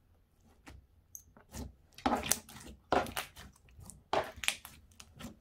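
Fingers squeezing and pressing a soft, gooey ooze-type slime, making three short bouts of wet, crackly squelches about a second apart after a quiet start. The ooze is too gooey to give crisp pops, so they come out soft and moist.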